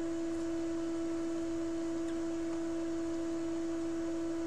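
A steady, unchanging pure tone with a fainter tone an octave above it, over a faint hiss.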